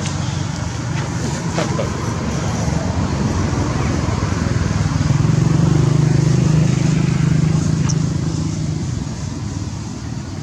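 Motor vehicle engine running with a low, steady hum that grows louder about five seconds in and fades near the end.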